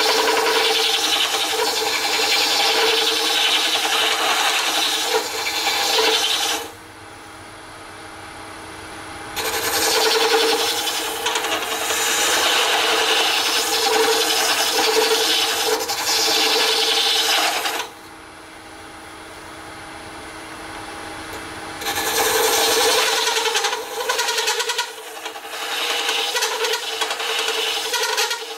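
Hollowing tool cutting inside a spinning Alumilite cast-resin globe on a lathe: a steady scraping hiss that comes in three long stretches. Twice the tool comes off the work for a few seconds, leaving only the lathe's faint running hum.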